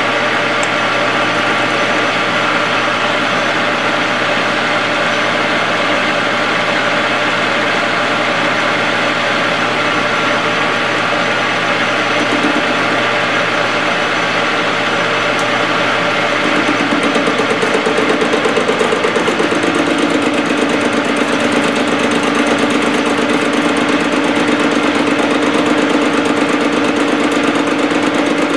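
Metal lathe running at 460 RPM with a carbide insert taking a hand-fed turning cut on a steel spur gear, a steady machine hum with many overtones. About two-thirds of the way through it gets a little louder and a new humming tone joins, stepping lower a few seconds later.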